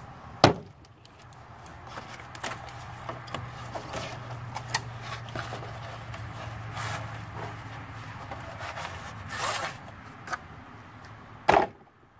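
Metal floor-jack handle sections and their cardboard packaging being handled: a sharp knock about half a second in, then scraping, rustling and small clicks as a handle section is slid out of its cardboard sleeve, and another knock near the end.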